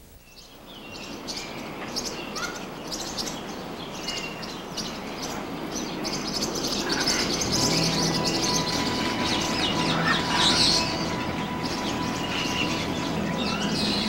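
Birds chirping and calling in a dawn chorus, fading up from quiet and growing busier. About halfway in, a steady held tone and a low hum join underneath.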